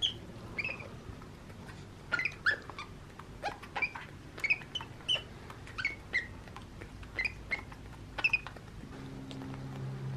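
Baby capuchin monkey giving a run of short, high squeaks and chirps, one or two a second, while it sucks milk from a bottle.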